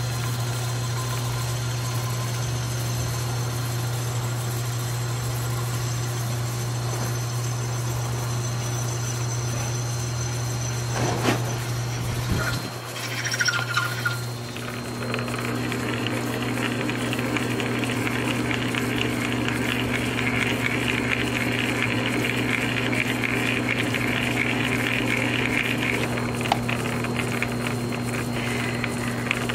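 South Bend metal lathe running with a steady hum while a homemade fly-cutter turns an aluminum sphere. About halfway through there are a few knocks and the running note changes, and a steady higher hiss of cutting joins it, easing off near the end.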